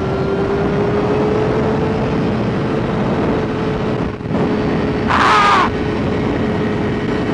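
Motorcycle engine running under way with wind noise on the helmet microphone, its steady pitch rising slightly, with a brief dip about four seconds in. A short, loud wavering squeal cuts through about five seconds in.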